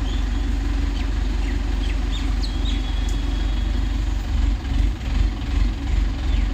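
An engine running steadily at idle, with uneven low rumbling swells in the second half. Short high bird chirps are heard faintly over it.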